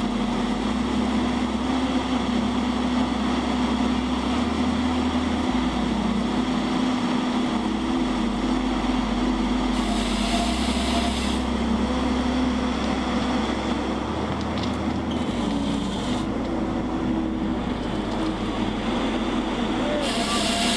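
Heavy forestry machine's engine running steadily with a constant hum. Brief bursts of hiss come about halfway through and again near the end.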